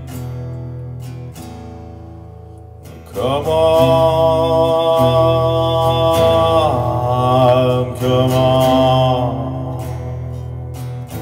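Guitar and voice: a strummed guitar chord rings on as a low drone, and about three seconds in a singer comes in with one long held note that wavers near its end and fades out around nine seconds.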